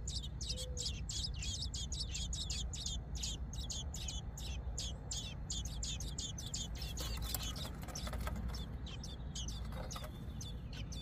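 American robin nestlings begging: a rapid run of thin, high cheeps, about five a second, that never lets up. About two-thirds of the way through there is a brief rustle.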